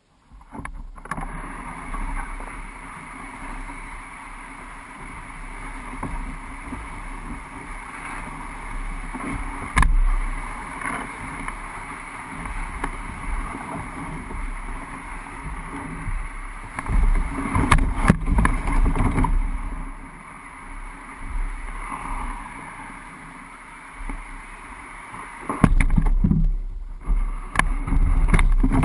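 Old Town Pack Angler canoe dragged hull-down over grass and rough ground: a continuous scraping and rustling that starts about a second in, with louder bumps and knocks several times as the hull rides over the uneven ground.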